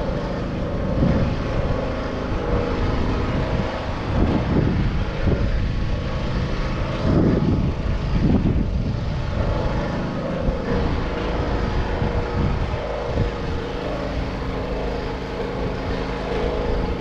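A motor vehicle's engine running steadily, with low rumbling swells every few seconds.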